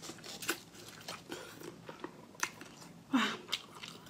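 Close-miked eating: biting and chewing soft spiny-lobster meat from the shell, with scattered sharp mouth clicks and a louder burst just after three seconds in.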